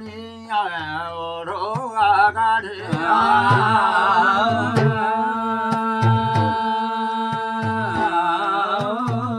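Men singing a Kumaoni jagar, a devotional chant. About three seconds in the voices settle into long held notes over a regular beat of percussion strikes.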